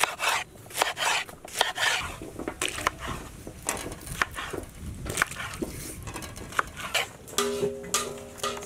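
Knife slicing okra on a wooden board, a sharp tap at each cut, irregular, about two or three a second. Near the end a few held musical notes come in.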